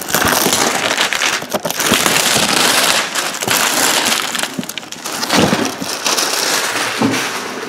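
Clear plastic shrink wrap being torn and crumpled off a large cardboard box, a loud, dense crinkling and crackling that eases off near the end.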